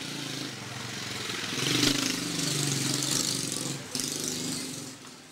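A motor vehicle's engine running as it passes by, growing louder about a second and a half in and fading away near the end.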